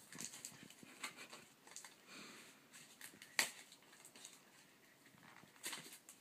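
Faint scratching and scuffing of a cat's paws and claws on carpet and yarn as it plays, with a sharp click about three and a half seconds in.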